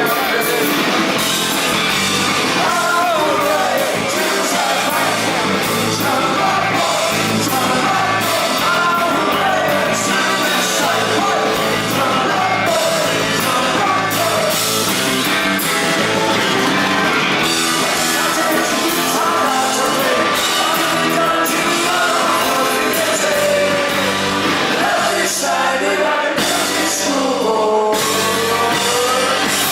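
Live rock band playing a song, a lead singer's voice over electric guitars, bass and drums, loud and without a break.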